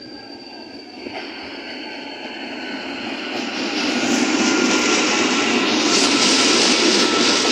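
CPTM Série 9500 electric multiple unit arriving at the platform: the rush of its wheels on the rails grows loud over the first four seconds as the train draws alongside, then holds, with a faint steady high whine throughout.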